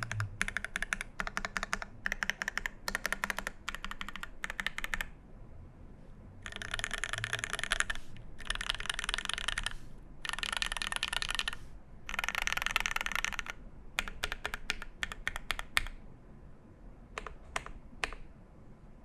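Typing on a TOFU96 mechanical keyboard with a brass plate, lubed C³ Tangerine 67g linear switches and GMK keycaps: bursts of quick keystrokes, then several dense runs of fast typing each about a second and a half long, then a few scattered single keystrokes near the end.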